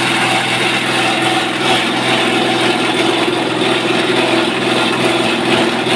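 SM-30 multifunction chopping machine running steadily, its motor and rotor giving a constant mechanical drone with no change in speed.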